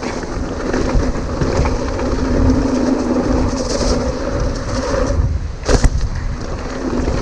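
Hardtail mountain bike descending a rough dirt trail at speed: tyres rolling and the frame and parts rattling over the bumps, with a steady low drone underneath. A sharp knock comes about six seconds in.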